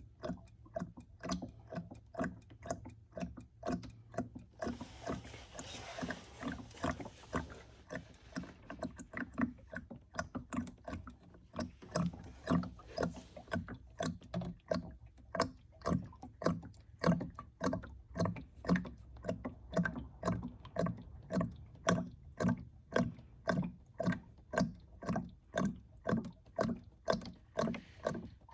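Motor oil glugging out of a 5-liter jug into a funnel, about two glugs a second as air gulps back into the jug, with a steadier rush of pouring from about five to thirteen seconds in.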